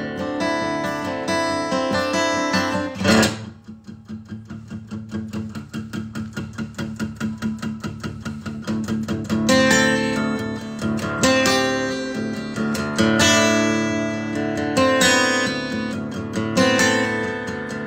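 Acoustic guitar played solo: strummed chords, a sharp accented strum about three seconds in, then a run of quick, even picked notes, and from about halfway through, full strummed chords again with strong accents.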